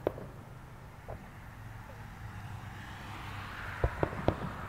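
Distant fireworks going off: a sharp bang at the start, another about a second in, then three in quick succession near the end, over a steady low hum and a hiss that builds from about halfway.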